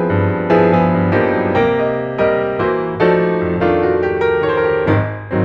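Background piano music, notes and chords struck about twice a second and ringing out.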